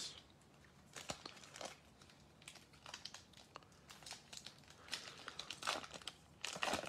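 Faint crinkling and crackling of a paper baseball-card pack wrapper being handled and torn open, in scattered small bursts that grow louder near the end.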